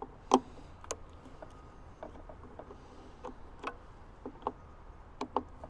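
Small irregular clicks and taps of a screwdriver working the terminal screws inside an EV charger's wiring compartment, loosening the wires, with one sharper click about a third of a second in.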